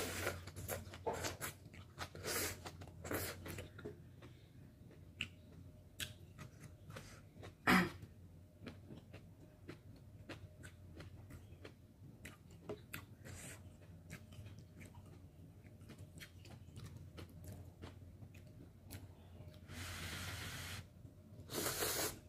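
Close-up wet chewing and mouth clicks of someone eating kimchi ramen and bok choy, with a single sharp knock about eight seconds in. Near the end come two hissing slurps of noodles.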